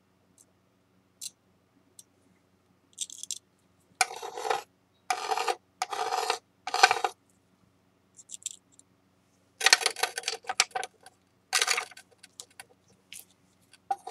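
Metal spatula scraping a paste of shinurushi lacquer and flour against a glass plate, in about seven short scraping strokes of half a second each, after a few light ticks of the tool.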